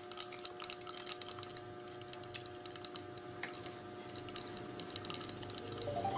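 Small plastic baby rattle being shaken, making a quick, irregular clicking over a faint steady hum. Near the end a rising engine-like tone comes in.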